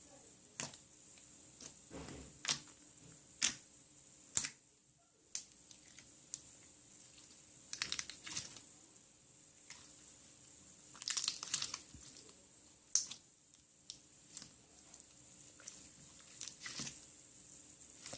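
Clear slime being squeezed and stretched by hand: scattered sharp pops and clicks, with quick crackling runs about eight and eleven seconds in.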